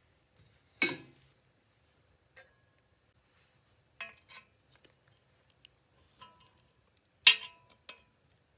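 Metal spoons clinking against a copper cooking pot and each other as food is lifted out: a handful of separate sharp clinks, the loudest about a second in and another near the end.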